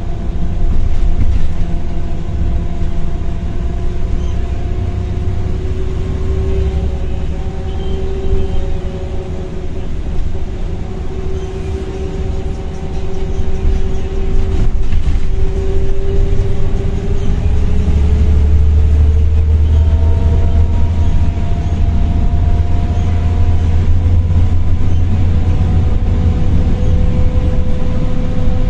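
Volvo B7RLE bus's ZF automatic gearbox and diesel engine heard from inside the saloon while driving: the gearbox whine, which is loud, climbs slowly in pitch as the bus gathers speed. About two-thirds of the way in a deep engine drone grows louder and stays heavy to the end.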